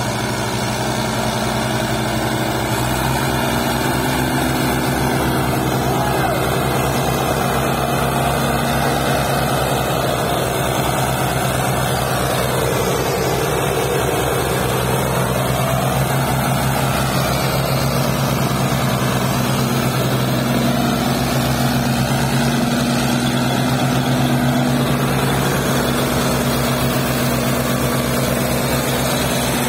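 Diesel engines of two Fiat/New Holland tractors running steadily under heavy load, chained in tandem to drag a loaded sugarcane trolley out of a field.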